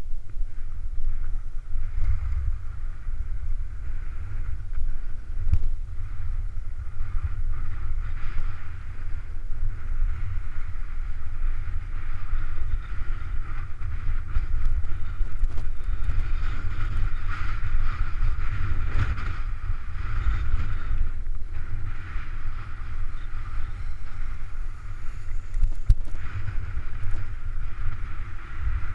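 Wind buffeting the microphone of an action camera moving downhill on a ski run, a heavy, steady rumble, with a fainter steady hiss of sliding over packed snow.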